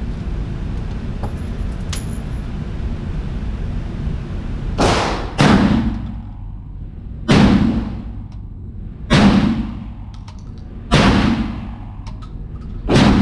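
Six shots from a VR80 12-gauge semi-automatic shotgun, echoing in an indoor range: two in quick succession about five seconds in, then single shots about every two seconds. Before them, a steady ventilation hum and a few faint handling clicks.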